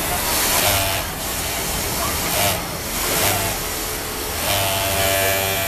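Industrial overlock sewing machine running in repeated short surges as a sleeve seam is sewn, a whirring hum with hiss, the longest run near the end.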